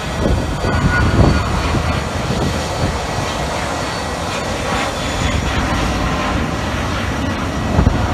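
Business jet flying overhead and climbing away, its engines giving a steady loud roar with a faint high whine, with irregular low thumps mixed in.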